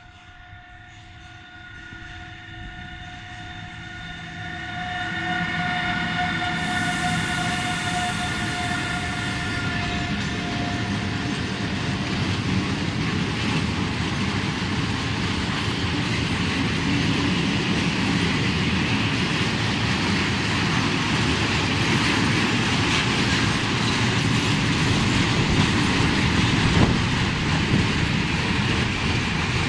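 Freight train of tank wagons hauled by an electric locomotive approaching and rolling past: it gets louder over the first few seconds, then the wagons rumble and clack steadily over the rails. A steady whine of several tones sounds with the locomotive's approach and fades out about twelve seconds in.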